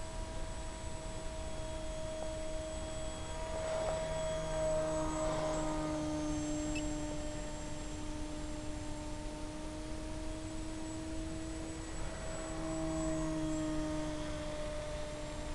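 Skywalker Sirius FPV plane's electric motor and propeller whining steadily over a hiss. The whine swells and shifts in pitch twice, about four seconds in and again about twelve seconds in.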